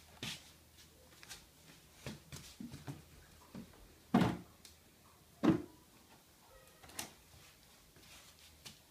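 A few scattered knocks and bumps from a small child handling a plastic wastebasket. The two loudest thumps come about four and five and a half seconds in, and a sharper click follows a little later.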